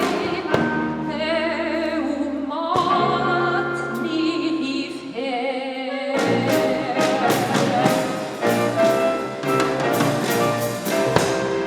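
Klezmer ensemble playing live: a wavering, slow melody line over sustained bass notes, then about six seconds in percussion and bass come in with a steady beat under the melody.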